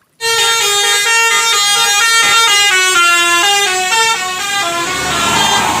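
Telolet bus horn: a multi-tone horn playing a quick tune of stepped notes, with a rushing noise rising under it near the end.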